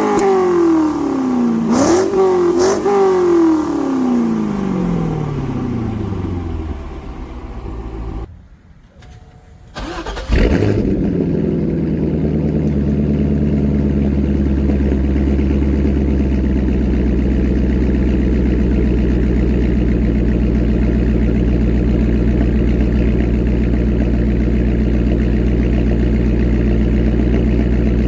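C5 Corvette Z06's LS6 V8 through an aftermarket exhaust: a few quick throttle blips whose revs fall back to idle, then a short drop-out. About ten seconds in the engine is started, catches with a flare and settles into a steady idle with a throaty note.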